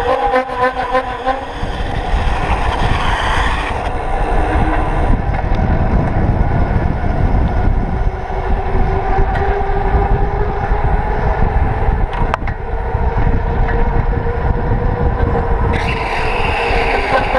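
Fat knobby bicycle tyre humming on asphalt at speed, a steady pitched drone that drifts slightly with speed, under heavy wind rumble on the fork-mounted camera's microphone.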